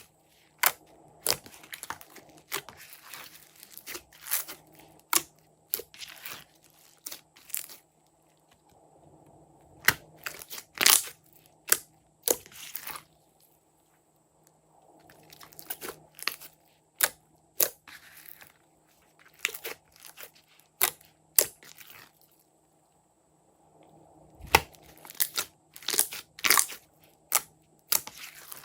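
Slime being handled, pressed and pulled, giving irregular crisp crackles and sharp clicks, broken by a few short quiet pauses.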